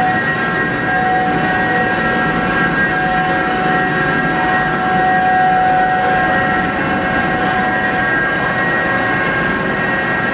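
Chilli pulveriser machinery running at speed: a loud, steady mechanical roar with a high, even whine over it.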